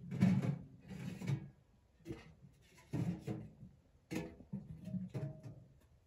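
A series of rustling, scraping handling noises with light knocks, about one a second, as a person moves about and shifts gear.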